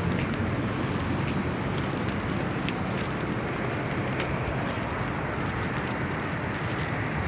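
Steady outdoor noise of wind buffeting the microphone, mixed with street traffic.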